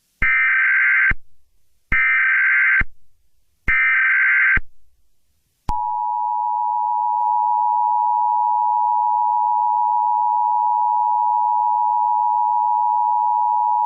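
Emergency Alert System SAME header: three bursts of digital data tones, each about a second long, then the EAS two-tone attention signal, a steady dual tone held for about eight seconds, announcing an incoming alert message.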